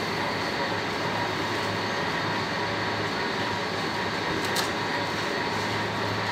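Steady mechanical hum of supermarket refrigeration and ventilation, from an open refrigerated meat display case and the store's air handling, with a constant low drone and faint steady whine. A single light click about four and a half seconds in.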